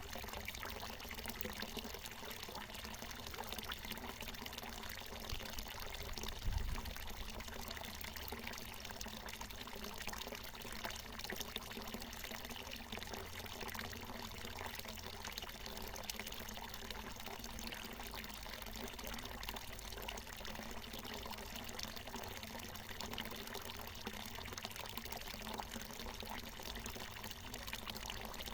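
Water from a natural mountain spring falling and splashing in a steady, continuous pour, with a brief low thump about a quarter of the way in.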